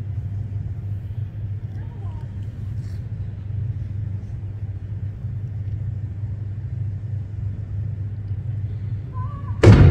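Steady low rumble, then near the end a single ceremonial cannon shot fires suddenly and very loudly, followed by a ringing, decaying echo. The shot marks the two minutes' silence.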